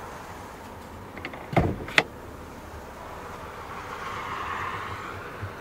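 Hood release of a 2013 Volkswagen Golf being pulled: a heavy thump about a second and a half in, then a sharp click half a second later.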